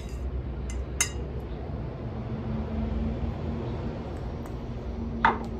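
A metal fork clinks twice against a plate, about a second apart, over a low steady background rumble. A faint steady hum comes in after about two seconds, and a short voiced 'mm' sounds near the end.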